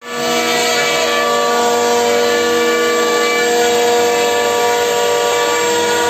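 EHTA gantry CNC router's spindle cutting through an MDF sheet, a steady whine made of several held tones over a running machine noise.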